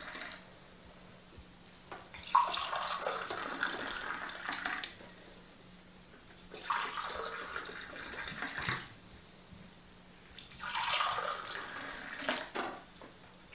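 Hot chamomile tea poured back and forth between two glasses to cool it: three pours of liquid splashing into glass, each lasting two to three seconds, with short pauses between them.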